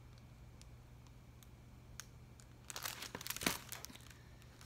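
A large hardcover picture book being handled: a brief rustle of paper pages with a few light knocks, starting about three seconds in.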